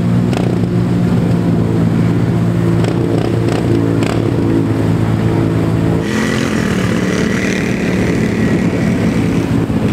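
ATV engine running hard at a steady pitch as the quad ploughs through a deep water hole. About six seconds in the engine note shifts and a hiss of splashing water joins it.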